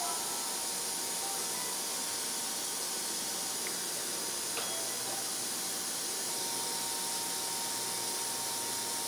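A steady hiss with a faint, thin, steady whine under it, and a couple of faint clicks in the middle.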